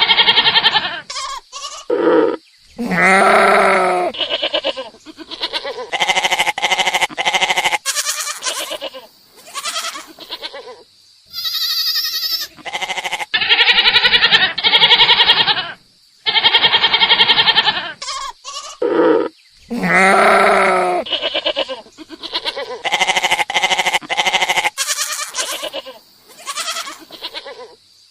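Goats bleating over and over: a run of separate wavering calls, some high and some lower, with short pauses between them.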